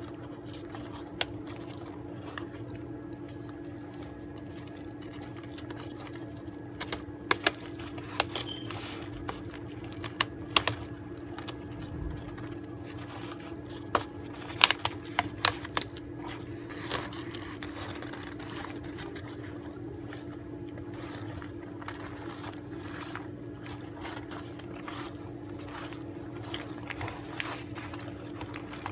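Sulcata and Russian tortoises biting and tearing curly kale leaves: irregular crunching snaps, busiest in the middle, over a steady low hum.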